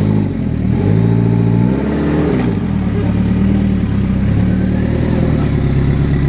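Rock-crawling buggy's engine revving up and down in repeated throttle blips as it climbs over rocks, with the highest rev rising and falling about two seconds in.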